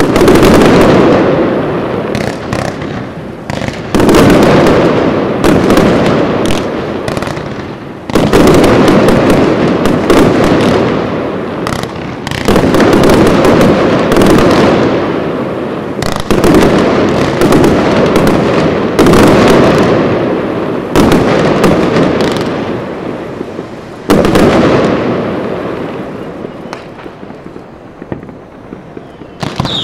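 Professional fireworks display: very loud, dense barrages of exploding fireworks, with a fresh surge of rapid bangs about every four seconds, each fading before the next.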